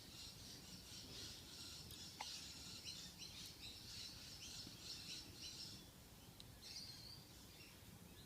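Near silence, with faint bird chirping in the background and a single small click about two seconds in.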